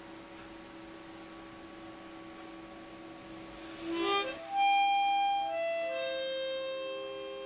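A faint steady hum, then about four seconds in music starts: a short rising slide followed by a melody of a few long held notes.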